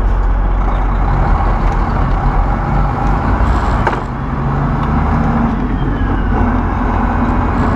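Truck's diesel engine and road noise heard from inside the cab while driving, a steady drone with its turbocharger barely working. A short click comes about four seconds in.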